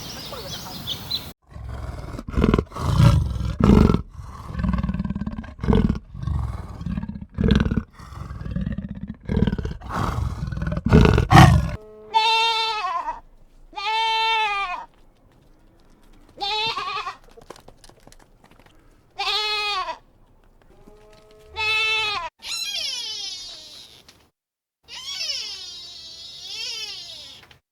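A string of animal calls: deep, rumbling calls for about ten seconds, then a row of separate bleat-like calls, each under a second, then higher, wavering cries near the end.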